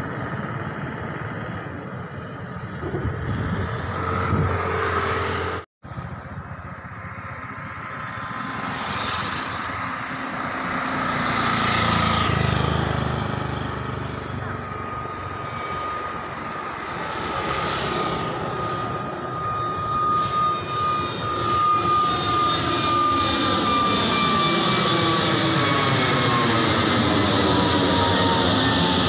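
A jet airliner on approach grows louder as it comes in and passes overhead. Its steady engine whine slides down in pitch over the last several seconds. Before it, a different engine sound cuts off abruptly about six seconds in.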